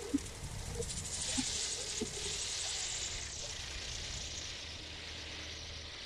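Small three-bladed wind turbine spinning fast, its blades giving a steady whirring hiss that swells over the first few seconds and then eases, with wind rumbling on the microphone.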